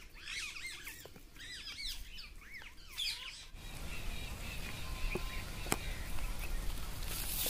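Small birds chirping rapidly in quick arched notes. About three and a half seconds in, this gives way abruptly to a low wind rumble on the microphone with a couple of sharp clicks.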